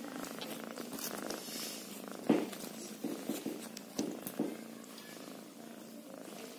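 Kitten purring steadily. A few sharp knocks and rustles break in between about two and four and a half seconds in, the loudest just past two seconds.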